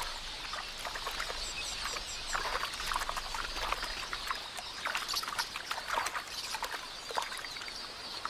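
Irregular splashing and flapping in shallow water as helmeted terrapins seize small birds drinking at the water's edge, over a constant high twittering, with a short run of high chirps about two seconds in.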